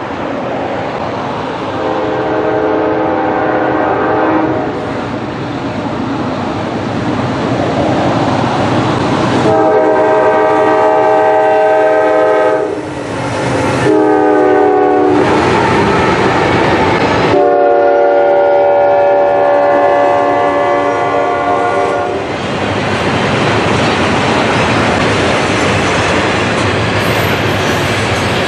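A GE Dash 9-40CW diesel locomotive blows its air horn in four blasts, long, long, short, long: the grade-crossing signal. The horn's pitch drops as the locomotive passes. After the last blast, the double-stack container cars roll by with a steady noise of wheels on rail and some clickety-clack.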